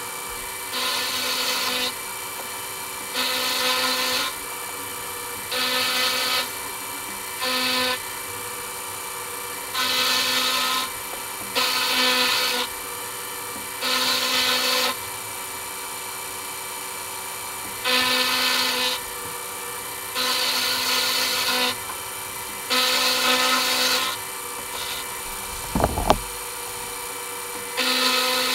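Milling machine running steadily while its cutter takes light cuts in metal, in repeated passes of about a second each, every two seconds or so. There is a single sharp knock near the end.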